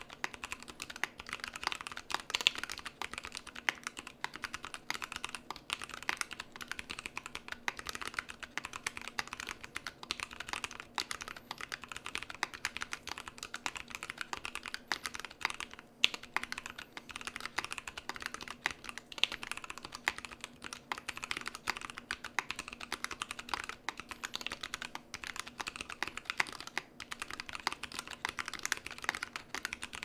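Continuous fast typing on a CannonKeys Rekt1800 mechanical keyboard with Lilac tactile switches lubed with 205g0 and filmed, on an FR4 plate, with GMK keycaps: a dense, unbroken stream of keystroke clacks.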